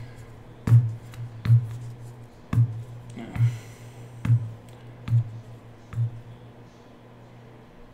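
A hand tapping seven times on the card-break table, about one tap every 0.8 seconds, each tap a short knock with a brief low ring, over a steady low hum.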